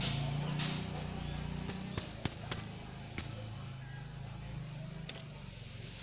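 A few sharp clicks and taps of small hand tools being handled on a workbench, over a steady low hum.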